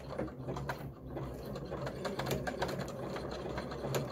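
Domestic sewing machine running steadily as it stitches a zigzag seam joining elastic bias binding to satin fabric: a motor hum with light clicking.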